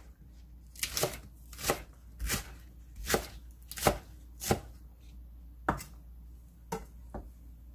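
Chef's knife slicing a green onion on the diagonal on a wooden cutting board: about ten separate cuts, each ending in a knock of the blade on the board, roughly one every two-thirds of a second, thinning out near the end.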